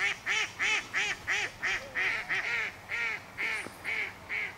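A duck quacking in a long, regular series of calls, about three a second.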